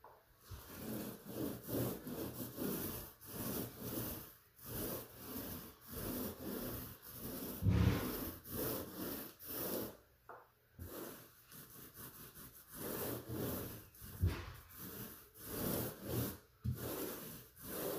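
Paint roller rolling paint onto a patched drywall wall in repeated back-and-forth strokes, roughly two a second, with a short pause about ten seconds in.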